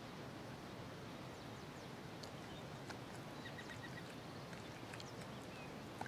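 Faint outdoor ambience: a steady soft hiss with a few brief, faint bird chirps, including a quick run of four short high notes a little past the middle.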